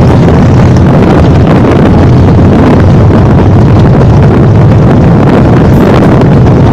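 Loud, steady wind rumble on the camera's microphone over a motorcycle engine running at road speed, heard from the moving bike.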